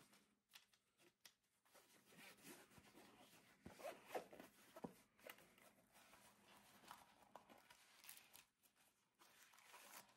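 Faint zipper on a fabric-covered hard-shell filter case being pulled open around its edge, in short, uneven strokes.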